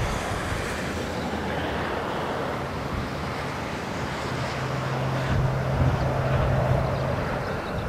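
Distant four-engined Boeing 747-400 jet airliner on landing approach: a steady low jet rumble. A low steady hum comes in about halfway through and stops near the end.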